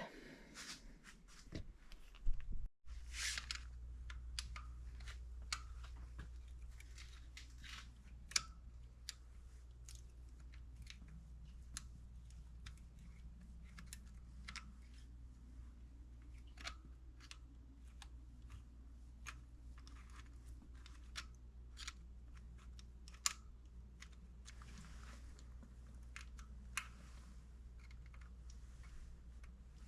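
Scattered, irregular light clicks and taps of hand tools on metal engine parts, over a steady low hum.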